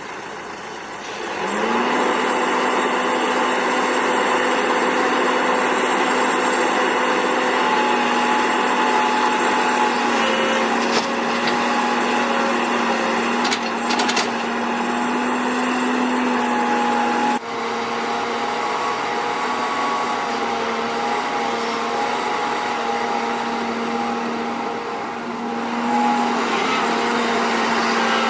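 Diesel engine of heavy earthmoving machinery revving up about a second and a half in, then running steadily at high revs, with a couple of light knocks in the middle and a sudden brief dip in level about two-thirds through.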